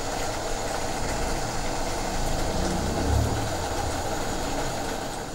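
Steady low hum with a hiss over it as a wok of curry sauce simmers on the stove, the hum swelling briefly about three seconds in.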